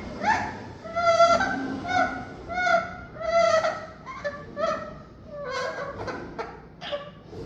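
Pet parrot calling over and over: a run of loud, short, pitched calls, about one to two a second, some sliding upward.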